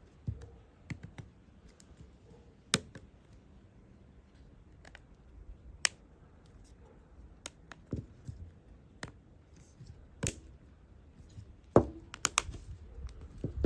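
Scattered sharp clicks and taps of small tools and plastic phone parts on a work surface, about a dozen at irregular intervals, as a smartphone's battery flex connector is worked back onto its board socket.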